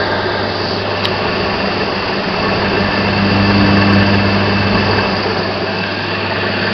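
Siemens three-phase electric motor running on 240 V single phase after being spun to start: a steady hum with the whirr of the rotor and cooling fan.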